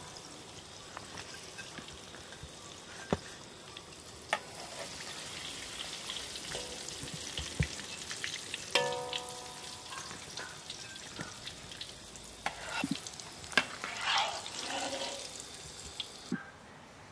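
Battered sugar apple fritters deep-frying in a metal wok of oil, a steady sizzle, with sharp clicks and knocks of a metal ladle against the wok.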